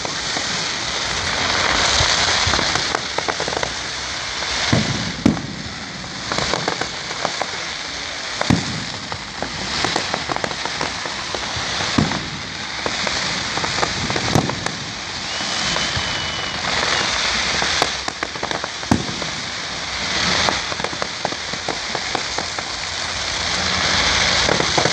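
Fireworks display: a dense, continuous crackling that swells and eases every few seconds, with frequent sharp bangs scattered throughout and a brief whistle about fifteen seconds in.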